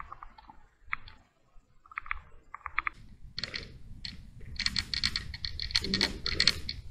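Footsteps crunching on a gravel tunnel floor, boosted in volume: scattered clicks at first, then a dense, irregular clicking from about three seconds in.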